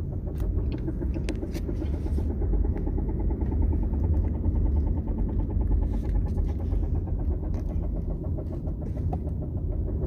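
Dodge Charger drive shaft making a rapid, even knocking over a steady low rumble, a sign of loose drive shaft bearings.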